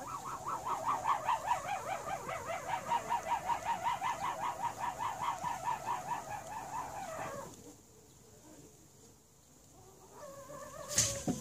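A bird calling in a fast run of repeated notes, about five a second, which stops about two-thirds of the way through.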